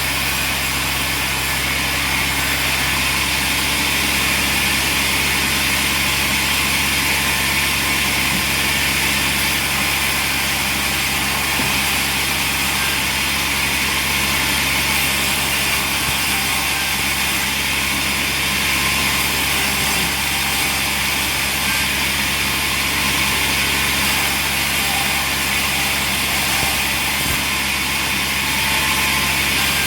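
Sawmill machinery running steadily: a constant low drone with a loud hiss over it and no breaks.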